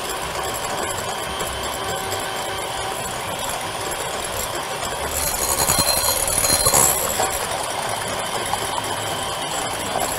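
Electric hand mixer running steadily, its beaters whipping egg whites in a glass bowl, along with a wire whisk beating egg yolks against a glass bowl. The whirring gets louder and brighter for a couple of seconds about halfway through.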